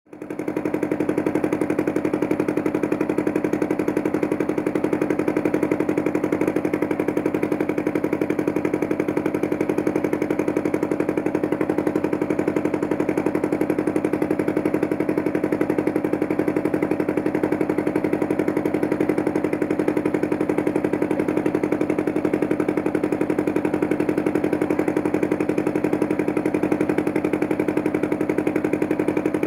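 Motorboat engine running steadily at an even speed, with a fast regular chugging pulse; it fades in at the start.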